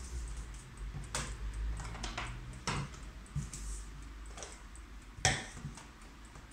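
Several sharp, irregular clicks over a low steady hum, the loudest about five seconds in.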